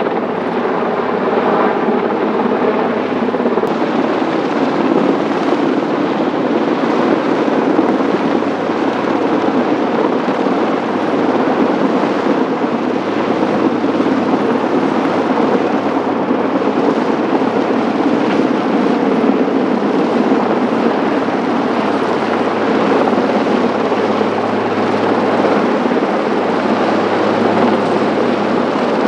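Eurocopter AS332 Super Puma helicopter hovering with a slung load, its main rotor and twin turboshaft engines running in a steady, unbroken drone.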